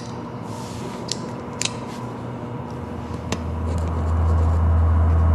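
Faint pen and paper handling: a few light clicks and rustles as a document is signed. A low steady hum comes in about three and a half seconds in and becomes the loudest sound.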